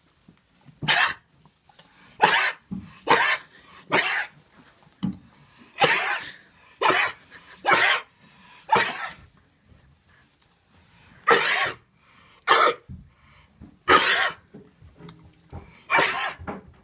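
A sheep sneezing over and over, about a dozen short, sharp sneezes roughly a second apart, with a pause of a couple of seconds around the middle.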